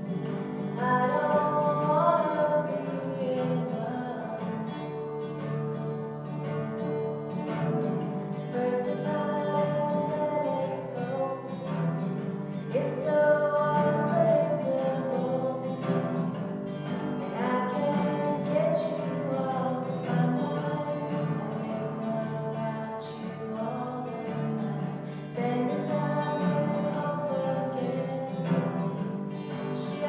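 A woman singing a slow song, accompanying herself on an acoustic guitar, inside a large steel oil tank.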